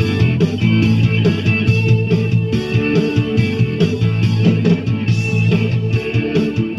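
Music with a plucked guitar carrying the tune over steady low notes.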